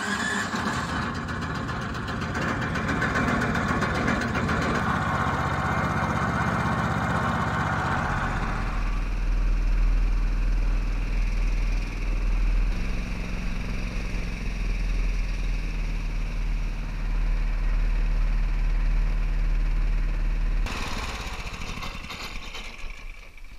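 Small boat's outboard motor running steadily as the boat travels across open water. The sound turns deeper about eight or nine seconds in and drops away near the end.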